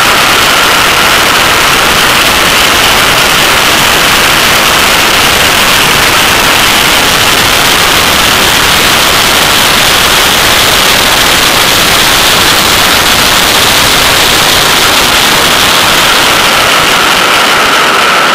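Loud, steady rush of wind and road noise on a camera mounted on the rear wing of a Porsche 911 travelling fast on a race track.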